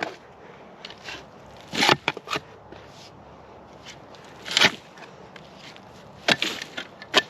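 Digging into rocky, root-filled soil around an old stump: a handful of sharp scrapes and strikes a second or two apart, with quiet between them.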